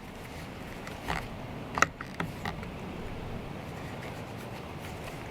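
A few short, sharp plastic clicks and knocks from a string trimmer's head as its spool-cap release knobs are pressed in, the loudest a little before two seconds in; one side is sticking and won't release.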